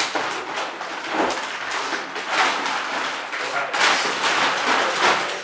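Large clear plastic bag crinkling and rustling as an RC truck body shell is pulled out of it, an irregular crackle with several louder swells.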